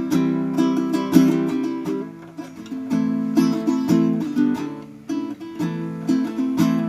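Kohala Kine'o baritone ukulele, tuned D-G-B-E like a guitar's top four strings, strummed through a sequence of chords, each chord ringing briefly before the next.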